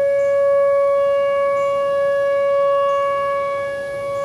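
Whelen Vortex outdoor tornado warning siren sounding its monthly test: a loud, steady single-pitched tone held at full speed after the wind-up, its loudness swelling and dipping slightly, with a small dip near the end.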